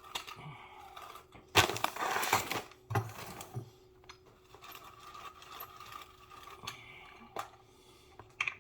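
Plastic bag of shredded cheese being handled: a loud crinkling rustle about one and a half seconds in, a shorter one about a second later, and a few sharp knocks near the end.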